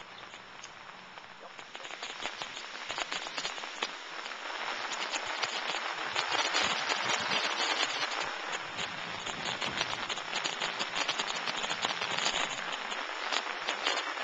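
Rain pattering steadily as a dense spatter of fine drops, growing louder over the first few seconds.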